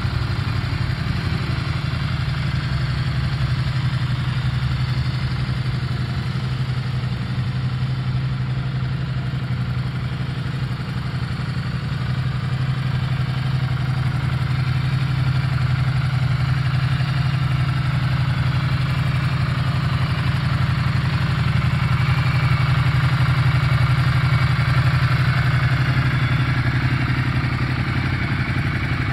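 2016 Ducati Multistrada 1200 Pikes Peak's Testastretta L-twin engine idling steadily, a little louder about two-thirds of the way through.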